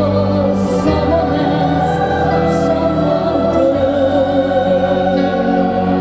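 A woman singing a slow song into a microphone with a children's choir singing along, in long held notes.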